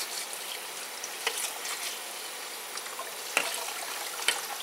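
Kitchen tap water spattering onto a metal pot lid held under the stream in a stainless steel sink, rinsing off bits of egg shell. Three sharp metal clinks come through the spatter.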